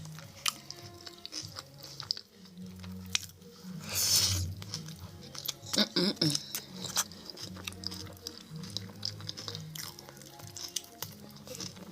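Close-miked chewing and crunching of food, with louder crunchy bites about four and six seconds in, over background music with a repeating bass line.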